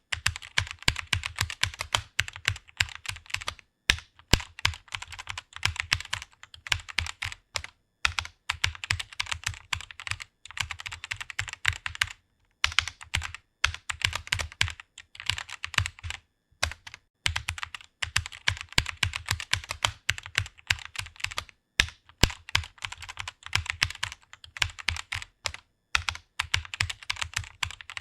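Fast typing on a computer keyboard: rapid key clicks in runs of a few seconds, broken by brief pauses.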